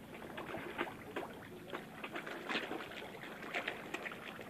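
A dense shoal of fish packed at the water's surface, gulping and slapping the water as they jostle for food, making an irregular patter of wet smacks and small splashes.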